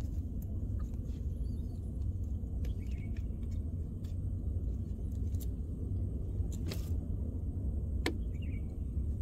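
Wind rumbling on the microphone over open water, with a few faint ticks.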